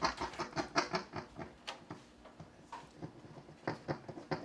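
Tapping and scratching on a piezo contact microphone, amplified through a loudspeaker: a quick run of taps for about the first second, then single taps about once a second.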